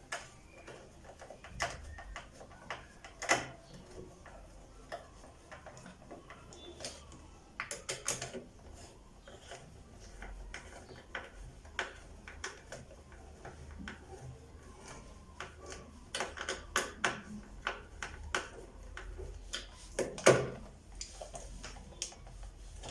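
Irregular clicks and knocks of a hair dryer's plastic housing parts being handled and fitted together, with the loudest knocks about three seconds in, around eight seconds and about twenty seconds in.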